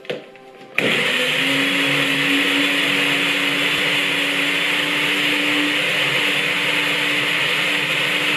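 Handheld stick blender switched on about a second in, blending a semla bun with milk. Its motor runs at a loud, steady whine.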